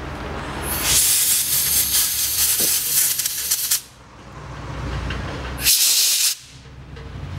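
Compressed-air blow gun blasting through a slightly clogged Haldex pump filter screen to clean it: a loud hiss of about three seconds starting about a second in, then a second short blast near the end.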